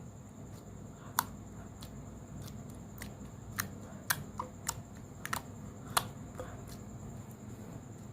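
Mud slime mixed with Boost malt powder, played with by hand: a string of sharp little clicks and pops, about a dozen, between about a second and six and a half seconds in, over a low steady background.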